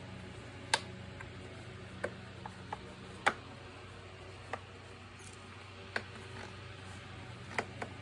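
Irregular clicks and light knocks of hard plastic vacuum-cleaner parts being handled and pressed into the housing, about nine in all, over a faint steady background hum.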